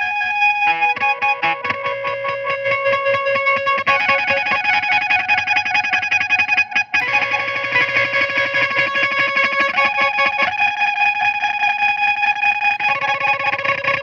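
Electric guitar (a Jazzmaster) played through a chain of effects pedals (Red Panda Particle granular delay, Red Panda Tensor, EAE Halberd, Fairfield Circuitry Shallow Water) into a Fender Vibrolux Reverb amp. Held notes are chopped into a fast, even stuttering drone that steps to a new pitch about every three seconds, with a brief cutout about seven seconds in.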